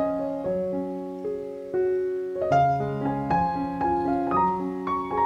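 Background piano music: single notes and chords struck about twice a second, each fading as it is held.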